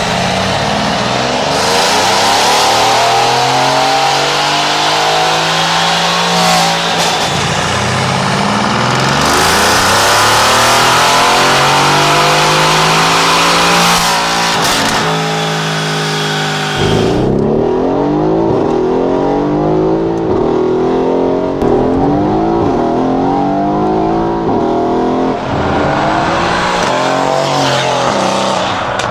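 Mercedes-AMG C63 S's 4.0-litre twin-turbo V8, breathing through Weistec downpipes into the stock exhaust and running a VRTuned ECU flash, accelerating hard: two long climbs in engine pitch with a shift between them. From about two-thirds of the way in comes a run of shorter, quicker climbs and shifts.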